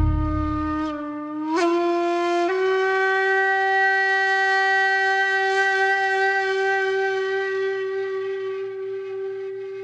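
A single horn-like held note: it steps up in pitch twice in the first few seconds, then holds steady and slowly fades. This is an edited transition sting marking the end of the first part.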